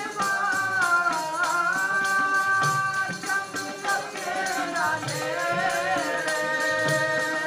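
Sikh kirtan: a man sings long, drawn-out melodic phrases over harmonium, with tabla keeping a steady beat underneath. The sung line pauses briefly about halfway through, then resumes.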